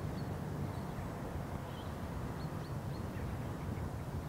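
Open-air ambience: a steady low rumble with a few faint, short bird chirps scattered through it.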